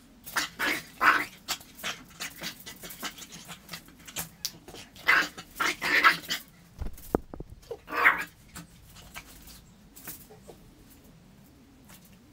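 A dog vocalizing in several short, loud bursts, the loudest about a second in, around five to six seconds in, and at about eight seconds, with scattered clicks and knocks between them.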